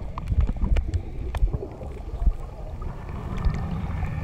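Muffled underwater sound recorded by a camera held below the surface in shallow seawater: a low rumble with many scattered clicks and knocks as the water moves around the submerged camera.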